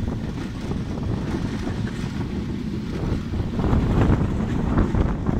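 Moving passenger train heard from an open carriage window: a steady rumble of wheels on the rails, with wind buffeting the microphone. It grows louder and more clattery from about three and a half seconds in.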